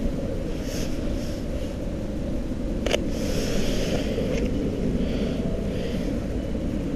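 Steady low outdoor rumble with no voices, with a single sharp click about three seconds in.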